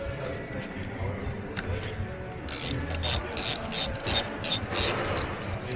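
Ratchet wrench clicking in a run of about eight strokes, about three a second, working the clamp nut of a battery terminal that is not seated fully down on its post.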